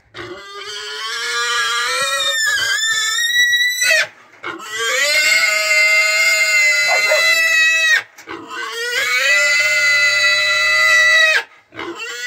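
Pigs mating, with one squealing in long, high, steady squeals of three to four seconds each. There are three full squeals with brief breaks between them, and a fourth begins near the end.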